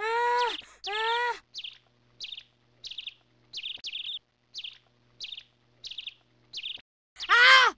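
A person wailing in two drawn-out rising-and-falling cries, then a small bird chirping in short, high calls about every half second, and the wailing starts again near the end.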